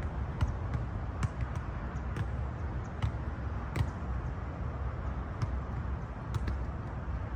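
Soccer balls being kicked and touched by players, short sharp thumps at irregular intervals over a steady low rumble.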